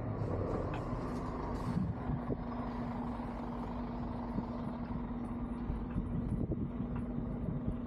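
Street traffic noise: a low rumble with a motor vehicle's engine humming at one steady pitch from about a second in, as if running in place, with a few faint clicks over it.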